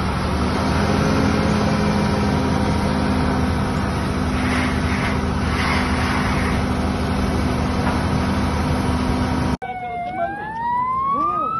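An engine running steadily under an even rushing hiss. About ten seconds in, after a cut, an emergency vehicle's siren starts up, its wail rising in pitch.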